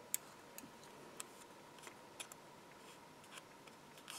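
Small pointed craft scissors snipping thin die-cut card: a scatter of faint, sharp little snips at irregular intervals.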